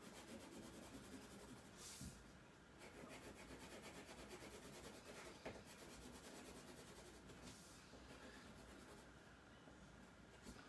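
Faint scratching of a colored pencil shading on paper in quick repeated strokes.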